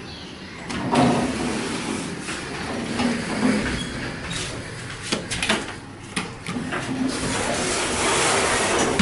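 Toshiba passenger elevator's stainless-steel doors sliding open about a second in, with a running mechanical rumble, several sharp clicks and knocks midway, and the door noise building again near the end.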